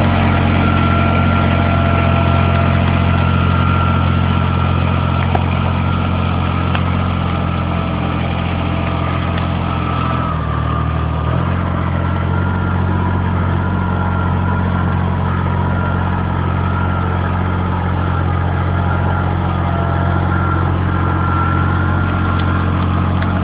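Kubota tractor's diesel engine running steadily under load, pulling a three-shank plough through soil. The engine note briefly shifts about ten seconds in, then settles back.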